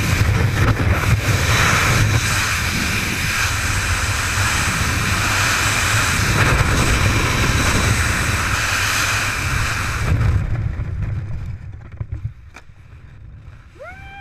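Loud wind rushing over the helmet-mounted action camera in wingsuit freefall, dying away over a couple of seconds about ten seconds in. Near the end a single short call rises and falls in pitch.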